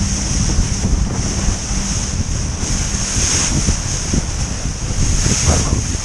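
Wind buffeting the microphone over the rush and splash of water along the hull of a small racing sailboat, a Mini 6.50, moving fast under gennaker.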